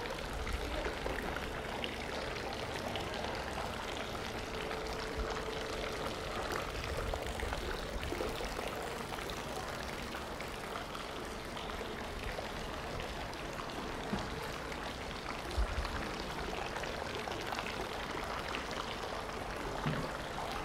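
Steady splashing of running water, with a few faint knocks near the end.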